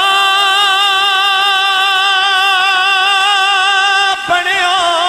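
A man's voice singing a Punjabi Sufi kalam, holding one long note with a steady vibrato for about four seconds. After a brief break he moves into a wavering, ornamented phrase.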